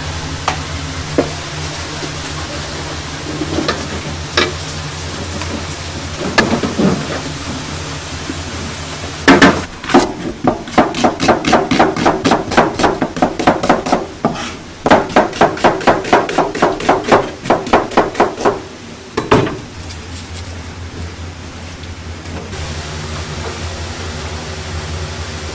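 A kitchen knife chopping on a cutting board: fast, even chops at about five a second in two runs of about four seconds each, after a few scattered single knocks, over a steady low kitchen hum.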